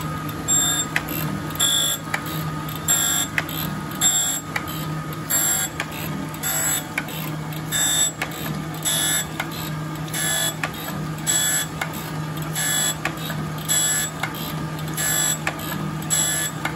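Jones & Shipman 1400 surface grinder taking a cut on an A36 steel block under flood coolant. A steady hum runs underneath a high-pitched grinding screech that comes in bursts about once a second as the block passes under the wheel.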